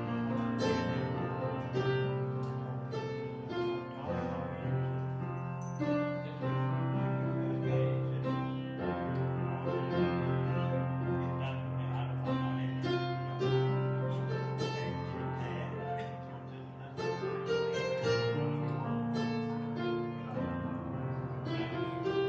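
Slow instrumental music on a keyboard, with long held notes and chords over a sustained bass line.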